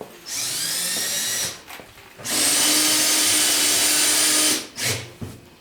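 Power drill running in two bursts. The first lasts about a second and rises in pitch as the motor spins up. The second is louder and steadier and lasts a little over two seconds.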